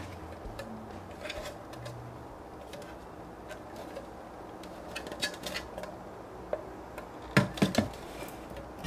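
Hard plastic toy parts being handled and turned over by hand: scattered light clicks and taps, with a louder cluster of knocks near the end.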